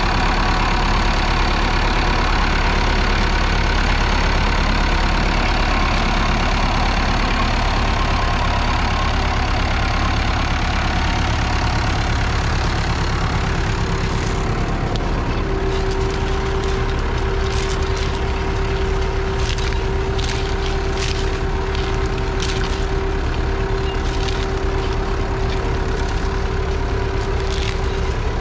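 Massey Ferguson 65's 3.3-litre four-cylinder diesel engine running steadily. About halfway through, a steady whine joins it, along with a run of sharp clicks.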